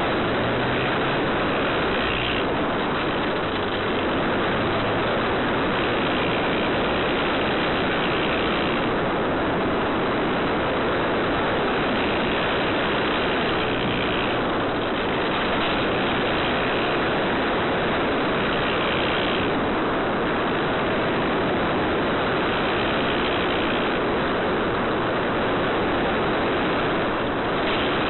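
Steady rushing noise of a small foam electric RC plane in flight, picked up by the tiny onboard spy camera's microphone: airflow and propeller noise with no clear tone.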